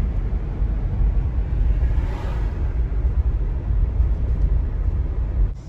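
Car driving on city streets, heard from inside the cabin: a steady low rumble of road and engine noise. It drops off suddenly just before the end.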